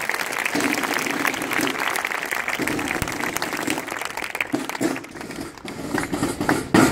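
Crowd applauding, with voices mixed in among the clapping. The clapping thins out about five seconds in and picks up again near the end.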